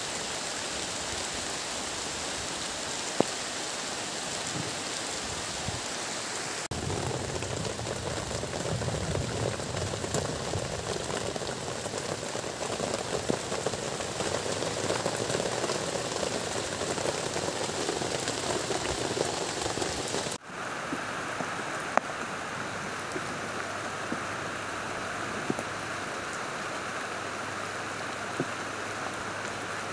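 Heavy tropical rain falling steadily, with scattered sharp drips. Through the middle stretch the rain is heard from under a plastic tarp, hitting the sheet overhead with a fuller, lower sound, and it turns thinner again about two-thirds of the way in.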